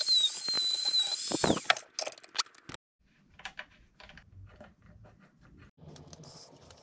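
Small handheld power tool whining at high speed as it trims a 3D-printed plastic part, then switched off and spinning down about a second and a half in. After that come light clicks and taps of plastic parts being handled.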